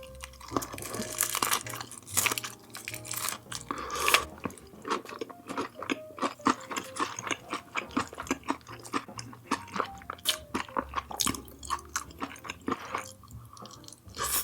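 Close-miked chewing of a mouthful of food, with many quick wet clicks and crunches. Faint background music plays underneath.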